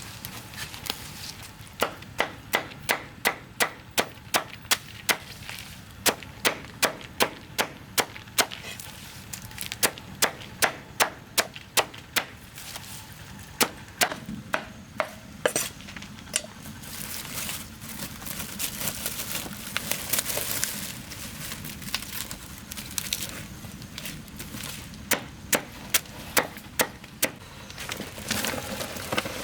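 Repeated chopping strikes of a blade on wood, about two a second, in runs with short pauses, then a stretch of uneven crackling hiss before a last run of strikes near the end.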